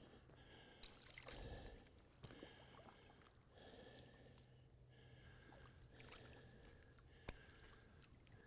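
Near silence: faint outdoor background with a soft rustle about a second and a half in and a single sharp click about seven seconds in.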